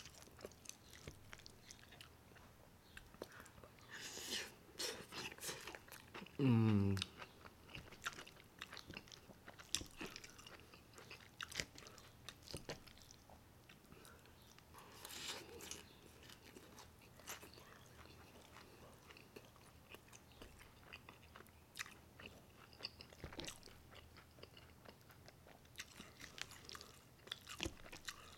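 Close-up chewing of mouthfuls of meat and lettuce from a burrito bowl: many small wet mouth clicks and crunches. About six and a half seconds in comes a short falling vocal sound from the eater, the loudest moment.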